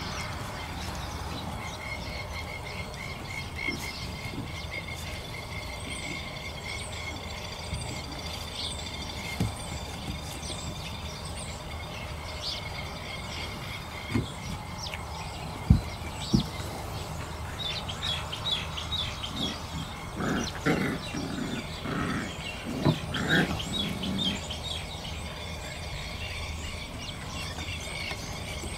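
Six-week-old Thai Ridgeback puppies at play: two sharp knocks about halfway through, the loudest sounds, and a run of short puppy growls and yips a few seconds later, over steady high chirping in the background.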